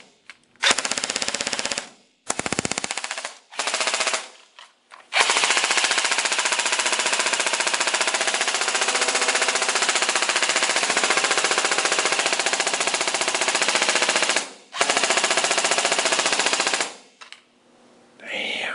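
Lancer Tactical M4 airsoft electric gun firing full-auto on an overvolted 11.1 V LiPo battery, its gearbox cycling at a very fast rate. It fires several short bursts, then one long burst of about nine seconds and a shorter one, and stops near the end.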